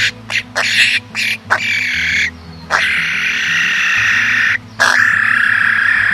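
Harsh, rasping bird calls played as a bird lure: a quick run of short calls, then two long held calls about two seconds each. Background music with a low bassline runs underneath.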